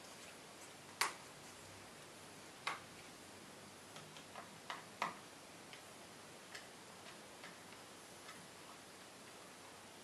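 Irregular small clicks and taps of a small screwdriver and tiny screws on an opened laptop's metal case, the hard-drive bracket screws being taken out. Three louder clicks come about one, two and a half and five seconds in.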